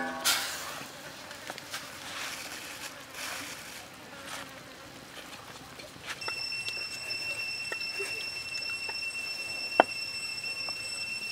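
A loud clatter right at the start, then soft crackles and hisses from the pan of broth over the wood fire. About six seconds in, a steady high-pitched insect drone sets in and runs on, with a sharp click near the end.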